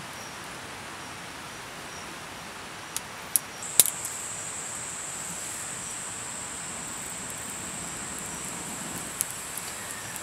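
Steady breathy blowing onto smouldering tinder, coaxing the embers under a small twig teepee into flame. A few sharp snaps come about three to four seconds in, and a steady high-pitched whine joins just after and continues.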